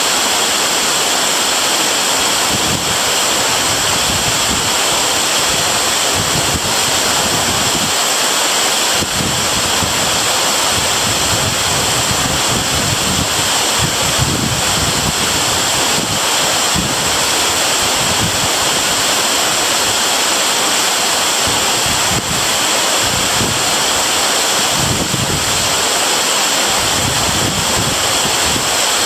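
Waterfall pouring steadily: a loud, even rush of falling water, with an uneven low rumble that swells and fades.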